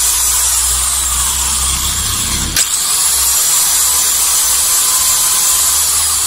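A new Mailtank angle grinder running at no load in the hand on its first test run, a steady high-pitched motor whine. A single sharp click sounds about two and a half seconds in.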